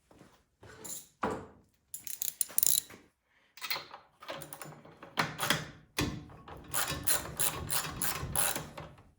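Ratchet wrench clicking in short back-and-forth runs as a spark plug is loosened from a snowblower engine, with a steady run of about four or five clicks a second near the end.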